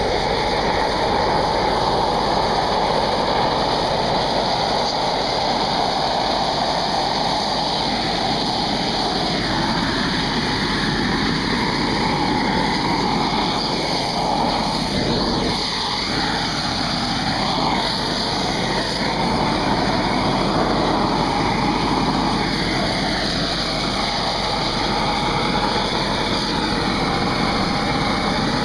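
Hot air lance blowing a steady, loud jet of heated compressed air into concrete joints to drive out moisture, over the running engines of the crack-sealing equipment.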